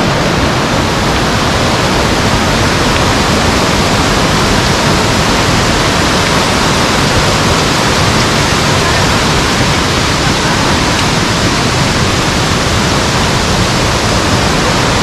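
Steady, loud rush of falling water from a mountain waterfall close by.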